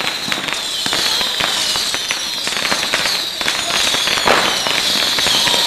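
A mass of babypijlen (tiny Dutch bottle rockets) firing off together: a dense, steady high whistling hiss of many launches at once, peppered with small cracks, with one louder bang about four seconds in.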